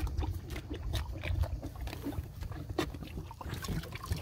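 Dairy calves slurping and lapping from a bucket: irregular wet smacks and clicks.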